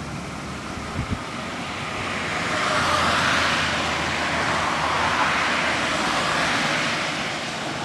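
Road traffic passing close by: a small kei truck and then a car go past, their tyre and engine noise rising and falling in two swells. Two short low thumps come about a second in.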